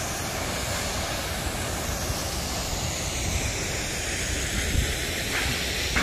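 Steady rushing of a waterfall, with an uneven low rumble underneath.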